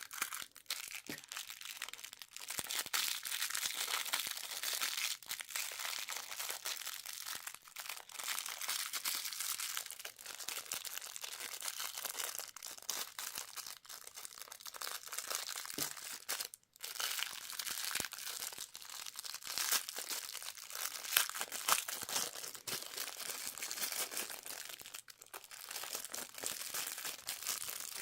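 Crinkling and tearing of plastic candy wrappers being unwrapped by hand: a continuous crackle of many small clicks, with a brief break just past the middle.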